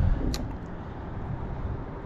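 Wind rumbling on the microphone, with a single sharp click about a third of a second in.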